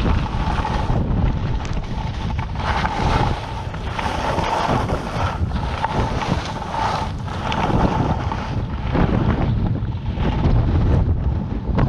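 Wind buffeting the microphone of a camera moving fast downhill, a steady low rumble, with the hiss and scrape of skis carving on packed snow swelling and fading with each turn.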